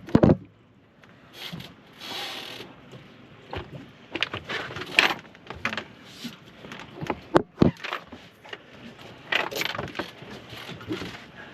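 Irregular knocks and clicks, the loudest right at the start and again about seven and a half seconds in, with a short hiss about two seconds in.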